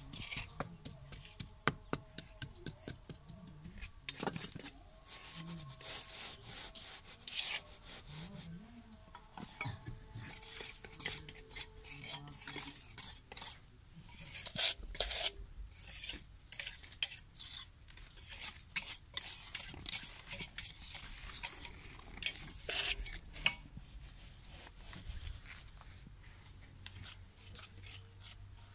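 Hand trowel scraping, scooping and packing wet, gritty concrete mix into a mould while a concrete spice mortar is being cast. It makes a continuous run of rough scrapes and small clicks of the blade on the mould.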